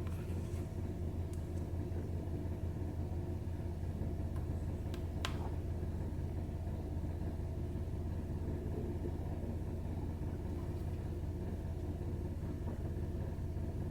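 Steady low hum, with a few faint sharp clicks; the clearest click comes about five seconds in.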